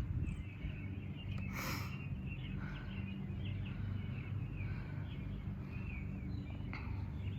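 Small birds chirping again and again over a steady low background hum, with a brief hiss-like noise about one and a half seconds in.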